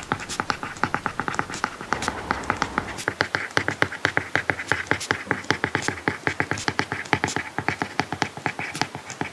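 Apple Pencil tip tapping and scratching on an iPad Pro's paper-like matte screen protector during handwriting: a quick, steady run of small taps, several a second, with short scratchy strokes between them.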